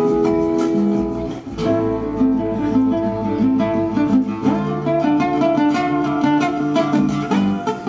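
Solo acoustic guitar played live: a fast run of plucked notes mixed with sharp strummed attacks, with a brief drop in loudness about a second and a half in.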